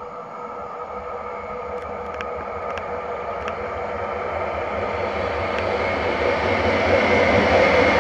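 Koleje Mazowieckie Stadler Flirt electric multiple unit running into the station, growing steadily louder as it nears, with a steady electric whine over the wheel and rail noise and a few faint clicks.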